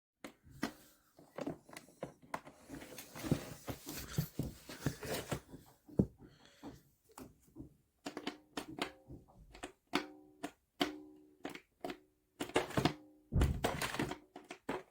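Knocks and clicks from handling a cheap plastic vacuum cleaner, with short repeated tones through the second half.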